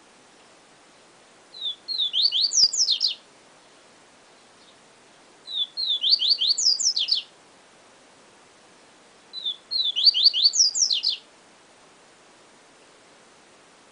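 Papa-capim seedeater (Sporophila) singing its 'siu siu professor' song: the same quick, high phrase of short down-slurred whistled notes, ending in higher falling notes, is sung three times about four seconds apart.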